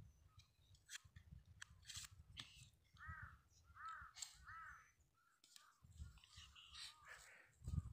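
Crows cawing: a short series of harsh caws in the middle, heard faintly over a low wind rumble on the microphone.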